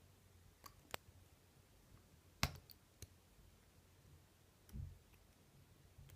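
Faint, sparse clicks of a lock pick probing the pin stack of a Securit euro cylinder held under light tension: a handful of separate clicks, the sharpest about two and a half seconds in, and a soft low knock near the end.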